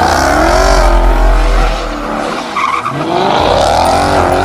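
Muscle car doing donuts: the engine revs up and down while the rear tyres squeal and skid.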